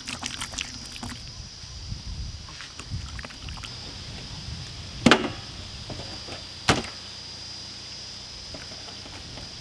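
Wet squelching of hands rubbing masala paste into raw beef ribs, then two sharp knocks about five and six and a half seconds in, over a steady high-pitched whine in the background.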